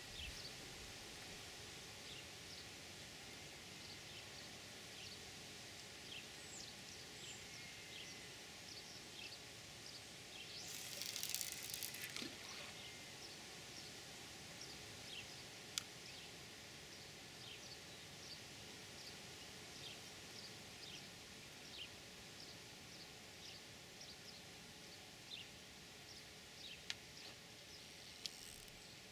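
Faint outdoor riverbank ambience with small birds chirping now and then. A louder rushing noise lasts about two seconds, about eleven seconds in, and a few sharp clicks come later.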